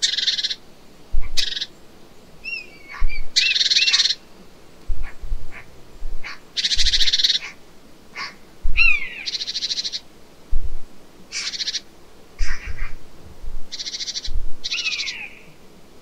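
Red kite whistling: thin high whistles, some wavering up and down and some gliding downward, heard three times. Mixed with them, and louder, come about nine short harsh rattling bursts, each under a second long.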